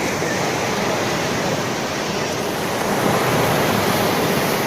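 Sea waves breaking and washing on the shore, a steady rushing noise that swells a little about three seconds in.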